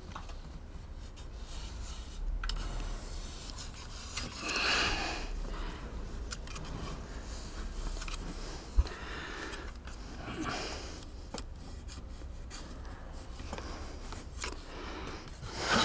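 A marker scratching and rubbing on plywood in short strokes as it is drawn around the edge of a hatch frame, with one sharp tap about nine seconds in.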